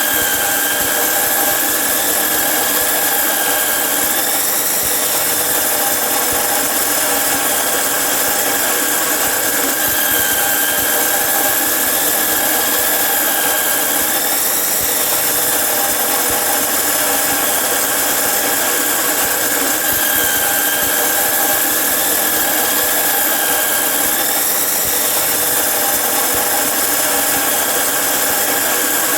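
Electric angle grinder with a cutting disc cutting through iron: a steady high-pitched whine over harsh hiss, with a slight dip and rise in pitch about every ten seconds.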